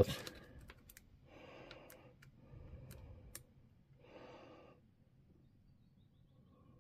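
Three soft breaths close by, about a second apart, with a few light clicks as multimeter probe tips are set on the terminals of a lithium-ion cell pack.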